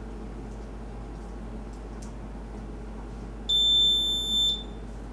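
Piezo buzzer on an Arduino ultrasonic alarm circuit gives one high-pitched beep about a second long, about three and a half seconds in. The buzzer sounds when the ultrasonic sensor detects an object closer than 20 cm.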